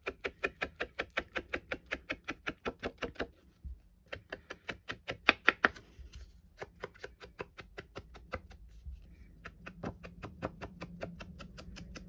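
Finger sponge dauber dabbing grey ink onto the edges of a card panel and back onto the ink pad: quick soft taps, about five a second. There is a short pause about three and a half seconds in, and the taps are fainter in the second half.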